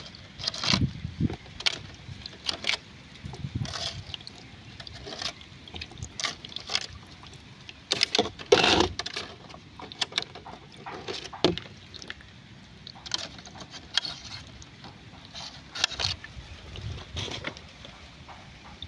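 Water sloshing and splashing in a shallow tub, in irregular short bursts.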